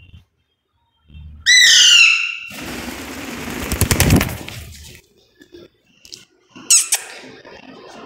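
A parrot gives a loud, harsh squawk about a second and a half in, followed by a couple of seconds of rapid rustling and fluttering close to the microphone, then a second short squawk near the end.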